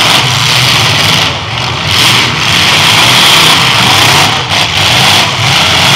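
Engines of several demolition derby cars running and revving together, loud and steady.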